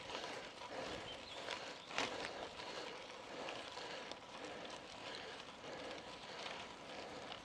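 Bicycle tyres rolling slowly uphill on a gravel road: a faint, even crunching with small repeated clicks and one sharper click about two seconds in.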